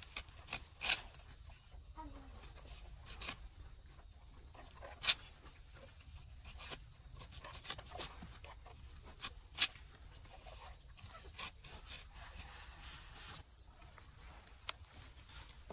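Steady high-pitched insect drone, with a number of sharp cracks or snaps scattered through it, the loudest about five and nine and a half seconds in.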